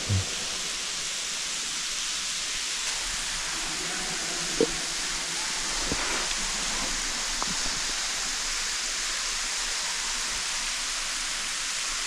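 Steady hiss of water falling down an underground waterfall into a cave pit, with one brief sharp sound about four and a half seconds in.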